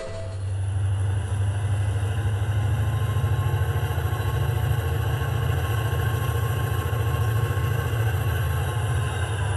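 HO-scale model diesel locomotives running with a steady, low, throbbing engine rumble as they pull a train of covered hopper cars.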